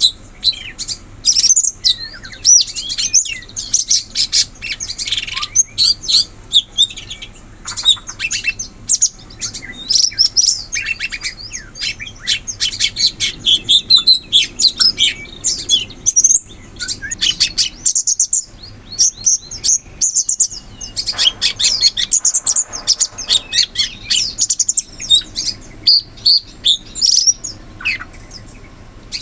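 Cucak cungkok singing vigorously: a dense run of rapid, fast-changing chirps and trills, broken by a couple of short pauses.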